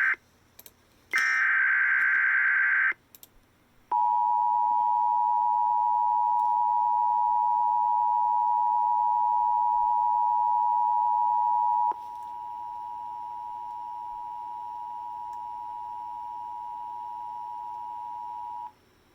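Emergency Alert System tones heralding a severe thunderstorm watch. First comes a short shrill burst of digital header data about a second in. Then a steady two-tone attention signal is held for about eight seconds, drops to a quieter steady tone for about seven more, and cuts off.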